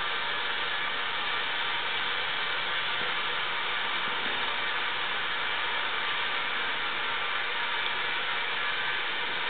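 High-pressure propane banjo burner running with a steady, even hiss.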